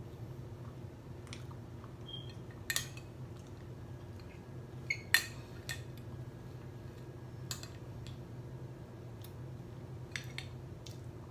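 Metal spoon clinking and scraping against a glass dish as ice cream and apple pie are scooped up: a handful of sharp clinks, the loudest about five seconds in, over a faint steady low hum.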